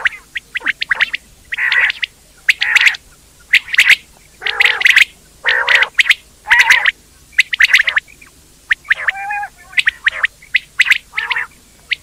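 Quail calling over and over: short, harsh calls coming one or two a second, with brief gaps between them.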